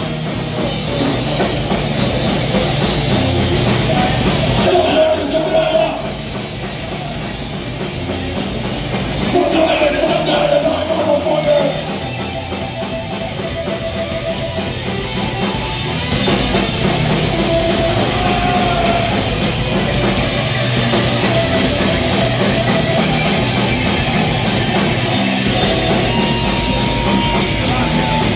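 Thrash metal band playing live: distorted electric guitars, bass and drum kit in a loud instrumental passage.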